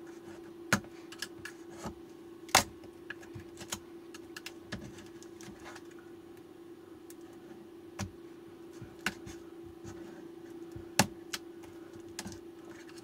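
Hand pick clicking and scratching against the silicone sealant and casing of an e-bike battery pack, in irregular sharp taps with a few louder clicks, over a steady low hum.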